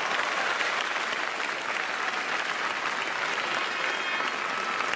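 Spectators' applause, steady clapping after a point ends in a badminton rally.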